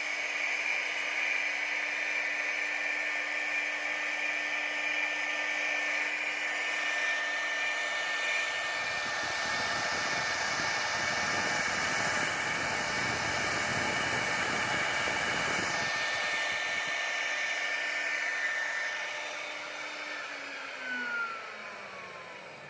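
CNC router spindle running with a steady high whine. From about a third of the way in, for several seconds, the bit cutting into the workpiece adds a rougher, fuller noise. Near the end the whine falls steadily in pitch and fades as the spindle winds down.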